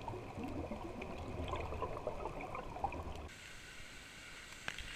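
Muffled water sounds heard underwater: gurgling and bubbling with a low rumble. About three seconds in it cuts to a quieter watery hiss.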